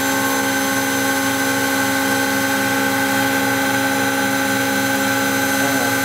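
Pro Light CNC milling machine running steadily, its spindle motor giving a constant whine over a hiss as the end mill cuts into a block of machinable wax.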